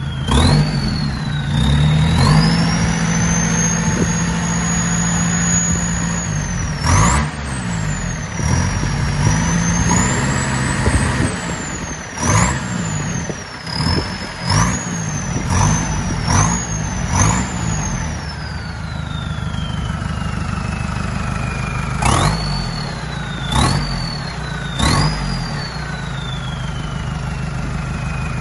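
Mercedes Sprinter diesel engine revved in bursts, with a loud high turbo whistle that spools up and holds, then rises and falls with a quick run of throttle blips. Near the end it winds down slowly between three last blips. The exhaust runs straight off the turbo with the catalytic converter removed.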